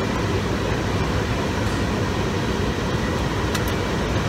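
Steady diesel engine and road rumble of an International semi tractor under way, heard inside the cab. Two brief clicks come about three and a half seconds in.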